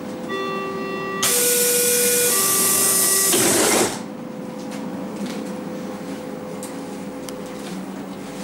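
Berlin S-Bahn train's door-closing warning, three long beeps going low, high, low, while the sliding doors close with a loud rushing hiss that stops at about four seconds in as the doors shut. After that a faint steady electrical hum from the train continues.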